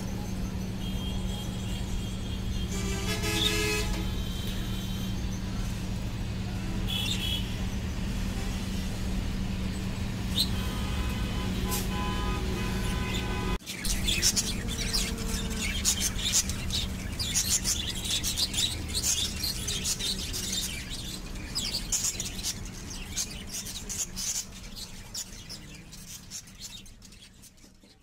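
A steady low hum with a few short horn-like toots in the first half. After a sudden change about halfway, many rapid high clicks and chirps, typical of budgerigar chicks shifting and calling on the nest bedding, which fade out near the end.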